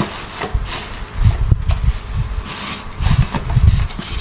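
Clear plastic wrapping and bags crinkling and rustling in irregular bursts as household items are unpacked by hand, over an uneven low rumble.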